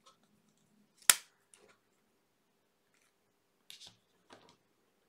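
A coiled USB cable being handled: one sharp click about a second in, then a few softer clicks and taps as the cable is laid down on the table.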